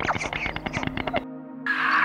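White stork bill-clattering: a rapid run of dry wooden clicks that cuts off abruptly a little over a second in. A steady low background music drone follows.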